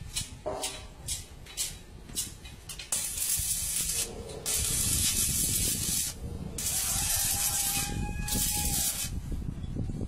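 A few sharp light clicks, then, starting about three seconds in, four bursts of hissing, each about a second long.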